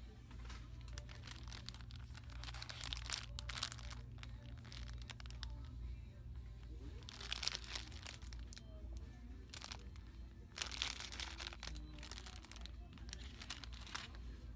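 Rustling and crinkling that comes in several bursts, over faint background music and a low steady hum.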